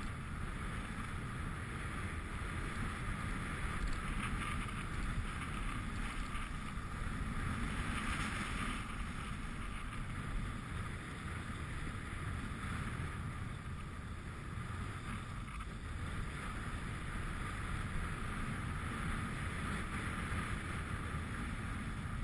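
Wind rushing over the microphone of a camera moving downhill, with the steady hiss of sliding over packed snow that swells and fades.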